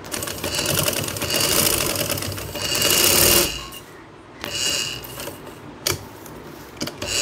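Black domestic straight-stitch sewing machine running, stitching a piped sleeve panel into place: one steady run of about three and a half seconds, then a few short spurts of stitches.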